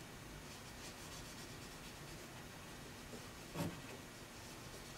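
Faint rubbing and scratching of an adhesive promoter swab being painted onto a surface, with one brief soft knock about three and a half seconds in.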